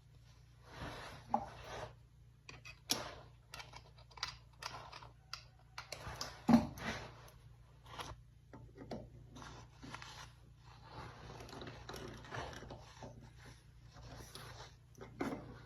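Irregular clicks, knocks and scraping of metal tools and parts being handled, with one louder knock about six and a half seconds in.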